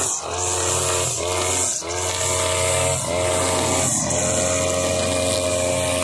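Husqvarna 542RBS backpack brush cutter's two-stroke engine running at high revs while its nylon trimmer line cuts grass. The engine note dips briefly and climbs back several times, then holds steady near the end.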